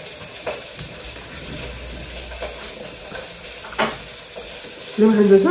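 Eating sounds: hands mixing rice with dal and chicken on steel plates, a soft steady rustle with a few light clicks. A brief vocal sound near the end.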